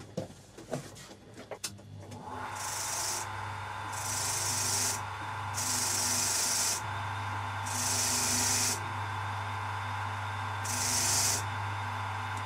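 An electric motor starts up and spins a wire brush. A small screw is pressed against the brush in five bursts of scratchy hiss, each about a second long, scrubbing old threadlocker off its threads.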